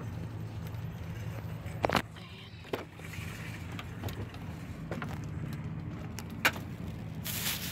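A car door being opened: a few sharp clicks and knocks from the handle and latch, the loudest about two seconds in and again near the end, over a steady low hum. Rustling starts just before the end.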